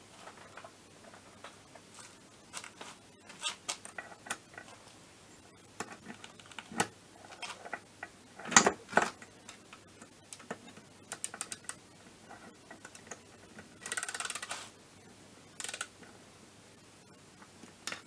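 Ratchet wrench clicking and metal tools clinking while the nuts on a scooter engine's cylinder head are tightened, with a couple of sharper metallic knocks a little before halfway and a short quick rattle of clicks near the end.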